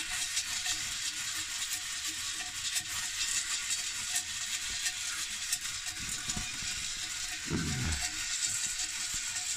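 Maize kernels sizzling and popping in a small metal pot held over a wood fire: a steady hiss with scattered sharp pops. A short low falling sound comes about three-quarters of the way through.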